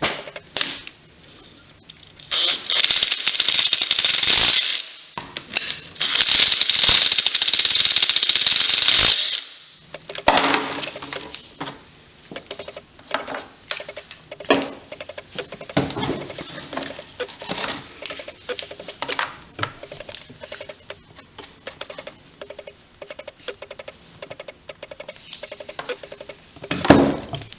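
Work on an engine with hand tools: many short metallic clicks and rattles. Two long hissing rushes of noise come before them, in the first ten seconds.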